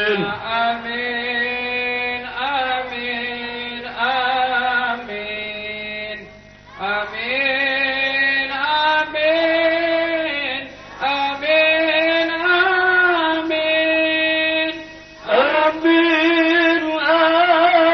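A solo voice sings a slow, melismatic Arabic devotional chant (salawat) through a microphone and loudspeakers. It holds long notes with wavering, ornamented turns and pauses briefly twice for breath.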